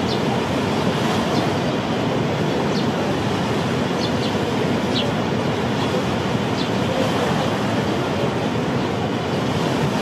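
Large waterfall, the Rhine Falls: a steady, dense rush of falling water that never lets up. A few faint high chirps sound now and then over it.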